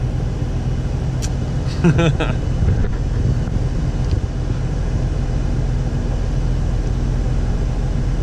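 Vehicle engine idling steadily, heard from inside the cab, with a short voice-like sound about two seconds in.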